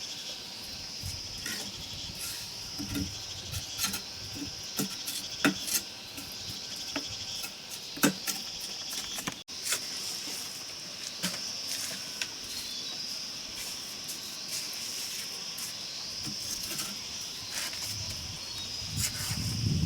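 Insects chirring in a steady high drone, with scattered sharp clicks and light knocks over it.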